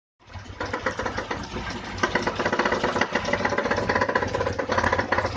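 VAZ-21011's four-cylinder petrol engine idling, still on choke, with a fast knocking running through it. The owner cannot tell whether the knock comes from the engine or the transmission.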